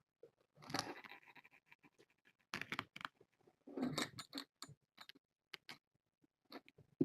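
Kittens scampering and scuffling, giving irregular light scratches, rustles and patters, with a few louder scuffles.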